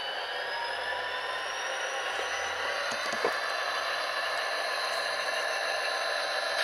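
HO-scale model locomotive's Tsunami sound decoder playing a running EMD 645 diesel prime mover through its small speaker. A high whine rises over the first few seconds and then holds steady.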